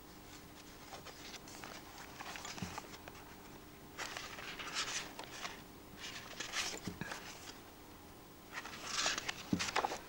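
Pages of a paperback book being leafed through by hand: several short bursts of paper rustling, with a few soft knocks of the book in the hands.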